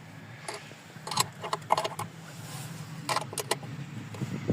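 Hand tools clinking against metal parts in a van's engine bay: several sharp metallic clicks and rattles with a brief ring, a few of them close together.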